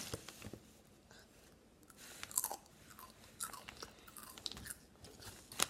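Someone chewing crunchy chips, a run of scattered crisp crunches, with sharper ones about two and a half seconds in and again near the end.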